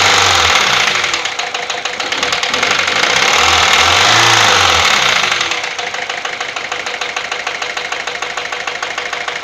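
Peugeot 407 1.6 HDi four-cylinder turbodiesel engine, revved up twice and then settling to idle about halfway through. A fast, regular knocking runs through it all: the abnormal engine noise being diagnosed.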